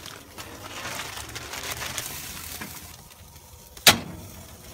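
Cognac poured from a bottle into a plastic bag of spinach, the bag crinkling as it is handled. A single sharp knock near the end, a knife hitting the metal grill grate while cutting an avocado.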